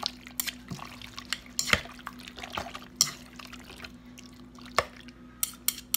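Chopsticks and a spoon stirring pork intestines in a wet fermented-bean-curd marinade in a stainless steel bowl: wet squelching with irregular sharp clicks of the utensils against the bowl. A faint steady low hum runs underneath.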